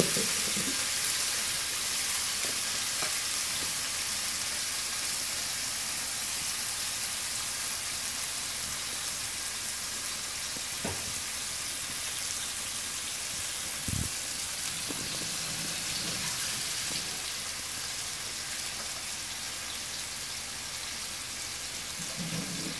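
Diced chicken, onion and garlic sizzling in butter and a little water in a frying pan: a steady hiss that eases slightly, with a faint click partway through and a short knock about two-thirds of the way in.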